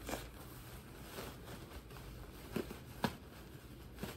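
Faint rustling and handling of plastic packaging as fursuit parts are unpacked from a cardboard box, with a few soft knocks.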